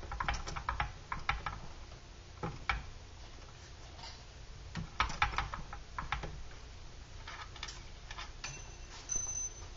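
Irregular sharp clicks and taps, in small clusters, from handling the clamp and parts of an antique highwheel tire-mounting machine.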